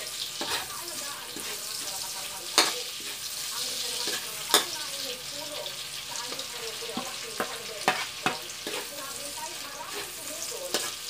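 Shrimp frying in oil in a metal wok, a steady sizzle, while a metal spatula stirs and scrapes them and clinks against the wok. The loudest clinks come about two and a half and four and a half seconds in, with a run of lighter ones around eight seconds.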